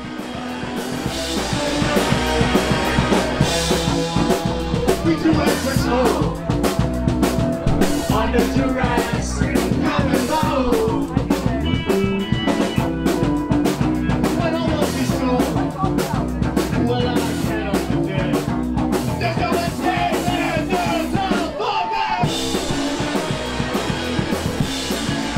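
A live punk rock band playing loud, with a drum kit and singing.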